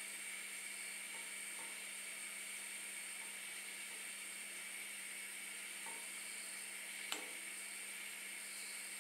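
Steady hiss of a gas flame heating a metal tin of rosin flux, with one sharp click about seven seconds in.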